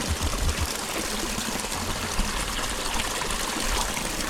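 Small stream running steadily, a constant trickling rush of water.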